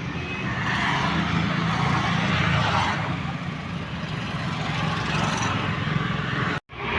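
Steady motor-vehicle noise: an engine running under a hiss of road or traffic noise, briefly cutting out altogether near the end.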